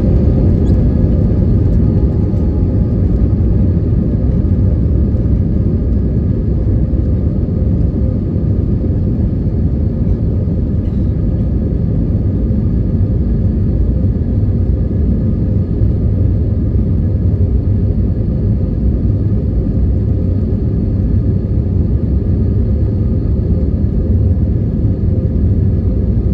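Airbus A320neo cabin noise from a window seat: a steady, loud low rumble of its Pratt & Whitney geared turbofan engines and airflow, with a few faint steady hums above it.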